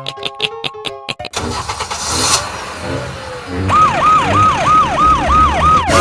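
Short mallet-like music notes, then an engine-like vehicle noise. About two-thirds of the way in, a siren sound effect starts: a quick rising-and-falling yelp that repeats about three times a second.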